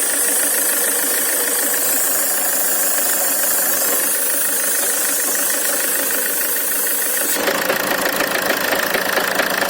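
Land Rover Freelander 2 four-cylinder diesel engine idling with a steady knock. The owner has found valves, rockers, injectors, compression and timing all okay and no fault codes, so the cause is unknown. About seven seconds in the sound changes abruptly, turning fuller, with the regular knocks standing out more.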